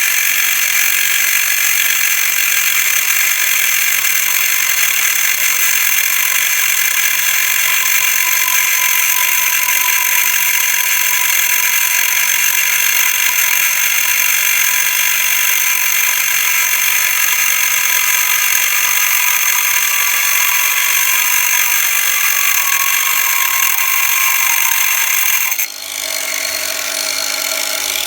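Einhell TC-AG 18/115 Li-Solo cordless angle grinder's cutting disc grinding through a rusted steel bolt: a loud, steady, high-pitched metal-cutting screech, the motor's tone sagging slowly as it is pressed into the cut. Near the end the cutting sound breaks off suddenly and a lower, steadier running sound is left.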